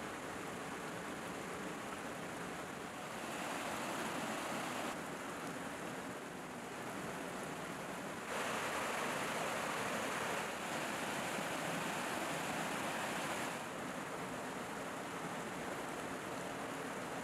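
Shallow stream flowing over stones: a steady rush of water whose loudness steps up and down abruptly a few times.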